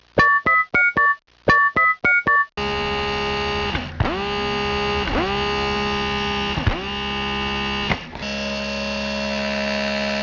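Telephone touch-tone keypad beeps, each a short two-note tone, in two quick runs; then a dentist's drill starts whining steadily, its pitch dipping briefly and recovering four times as it takes load, before running on evenly.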